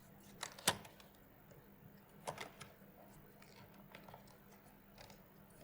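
Faint, scattered clicks and taps of a small cardboard product box being handled and opened, the sharpest a little under a second in and two more a little past two seconds.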